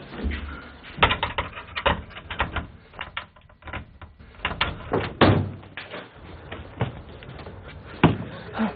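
Hurried footsteps and a flurry of sharp knocks and bangs as a door is handled and thrown open.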